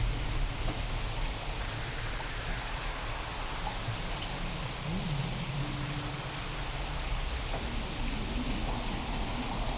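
Steady rain falling, from a real storm recording given sound-design treatment, with a low rumble underneath. About halfway through, a brief low tone rises and falls.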